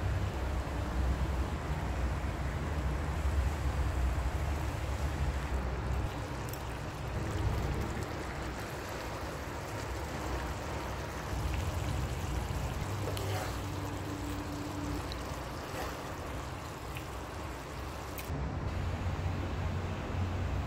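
Pork and pig liver stew boiling hard in a frying pan on a gas stove, a steady bubbling hiss over a continuous low rumble.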